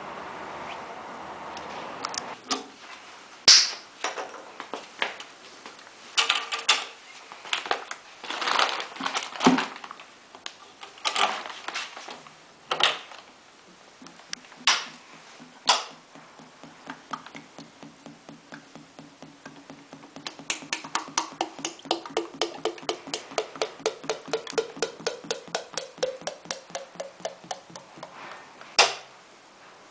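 Knocks and clanks as a metal oil pail is handled, then fresh engine oil glugging out of the pail's spout into a plastic oil jug, about three glugs a second, the pitch rising steadily as the jug fills.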